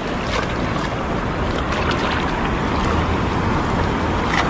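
Water splashing and dripping as a wet cast net is hauled up out of a shallow, flowing river, with a few louder splashes, over steady wind noise on the microphone.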